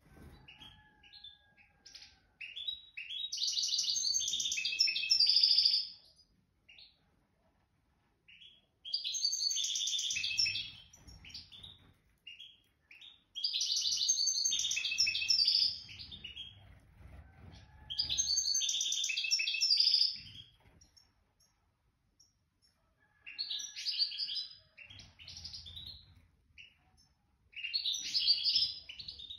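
A European serin singing: six fast, jingling, high-pitched song phrases, each a few seconds long, with short pauses between them.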